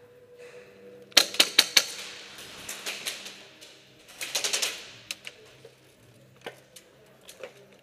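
Airsoft gunfire: a quick burst of about five sharp shots a little after a second in, a second rapid burst of several shots about four seconds in, then a few scattered single shots.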